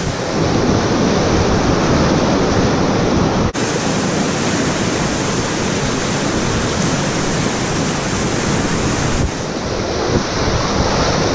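Whitewater rapid rushing and churning right around a packraft running it: a loud, steady roar of water, with splashing close to the boat.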